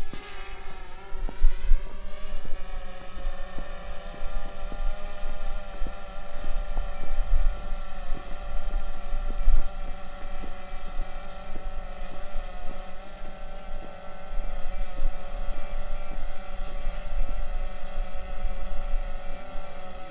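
Multirotor drone's propellers humming steadily, rising in pitch over the first two seconds and then holding, with irregular low rumbles underneath.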